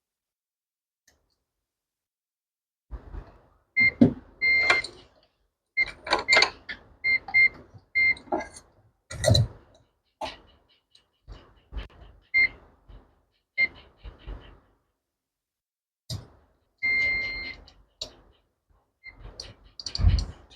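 Short electronic beeps, each a clean high tone, repeated at irregular intervals among small clicks and knocks of handling on a repair bench, with one longer beep about 17 seconds in.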